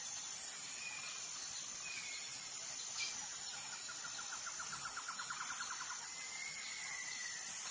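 Forest ambience: a steady high insect drone with a few short bird whistles scattered through, and a fast rattling trill of about six pulses a second lasting some two seconds in the middle. A single sharp click about three seconds in.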